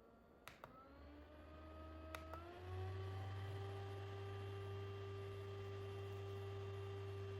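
Mini handheld fan's small motor switched on with button clicks. Its whine rises in pitch, steps up about two and a half seconds in as the speed changes, then runs steady.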